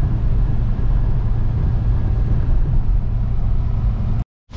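BMW E30 Touring at highway speed heard from inside the cabin: a steady engine drone under heavy road and wind noise. It cuts off abruptly shortly before the end.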